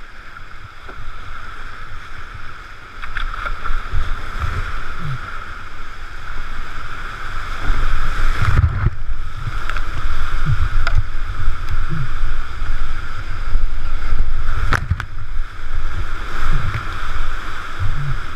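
Whitewater rapids rushing and churning around a kayak running the drops, getting louder as it goes deeper into the rapid, with a couple of sharp knocks partway through.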